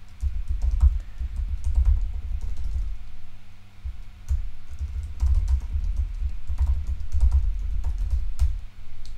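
Typing on a computer keyboard: quick, irregular runs of keystroke clicks with a low thud under each run, and a short pause a little before halfway.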